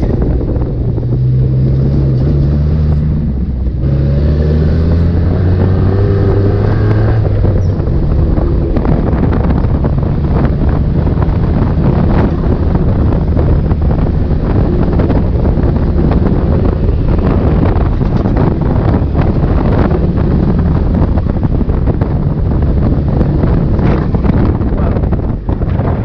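Dune buggy engine driving under way. It rises in pitch as it accelerates a few seconds in, then gives way to a rough, noisy run over the trail with wind buffeting the microphone.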